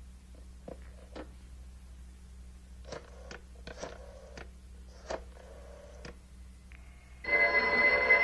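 Telephone being dialled: a series of faint clicks from the handset and dial. About seven seconds in, a telephone bell starts ringing loudly.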